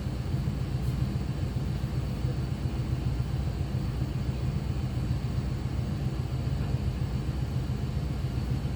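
Steady low hum of operating-room background noise from equipment and ventilation, even and unchanging.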